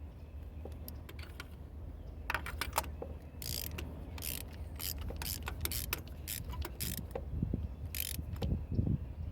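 Hand socket ratchet clicking in short, irregular runs as it is worked back and forth.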